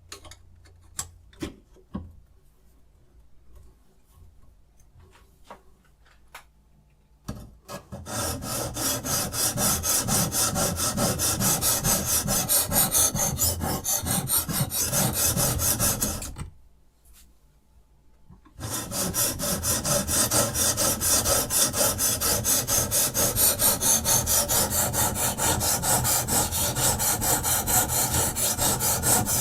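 Sharpening stone of a Rehoo Pro RH006 guided knife sharpener stroked rapidly back and forth along a knife edge, a fast, even rasping. A few light clicks and taps come before the stroking starts about eight seconds in, and the stroking stops for about two seconds midway before resuming.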